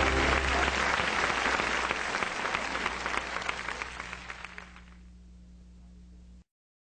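Audience applause: dense clapping that dies away over about five seconds, leaving a low hum before the sound cuts off.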